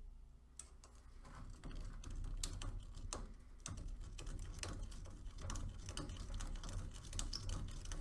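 Stick reamer scraping inside the freshly cut end of a copper refrigerant line to deburr it: a run of irregular small clicks and scrapes.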